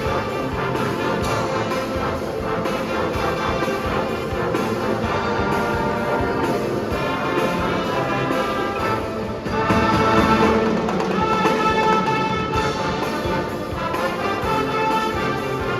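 Marching band playing: brass (trumpets and trombones) holding sustained chords with percussion underneath, swelling louder about ten seconds in.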